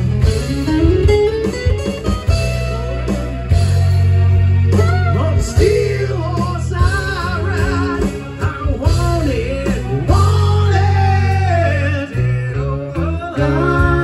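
Live band music through a PA: an amplified acoustic-electric guitar playing over heavy sustained bass notes, with a man's voice singing a wavering melody from about four seconds in.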